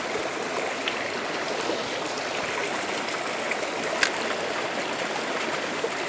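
Small mountain stream rushing steadily over rocks. A single short click sounds about four seconds in.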